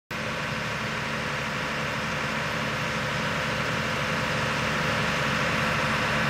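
An engine running steadily at idle, growing slowly louder.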